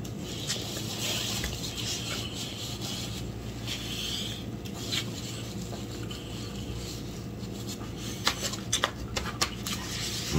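Mealtime sounds of hands picking food from a plate and white clamshell takeout containers: light rustles and handling noises over a steady low hum, with a run of sharp clicks and taps near the end.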